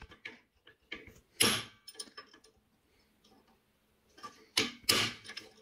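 Hammer tapping a steel punch against a link of antique flat steel conveyor chain clamped in a bench vise, driving the link apart. There are sharp metallic blows, one about a second and a half in and two close together near the end, with light clicks of metal between.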